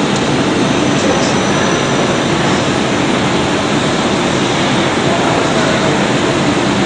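Steady, loud rushing noise of machinery or moving air, even throughout with no distinct knocks or changes.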